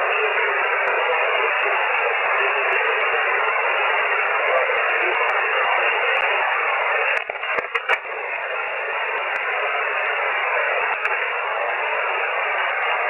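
Amateur shortwave radio receiver putting out steady band-noise hiss between transmissions. About seven seconds in the hiss briefly breaks up with a few clicks, then carries on.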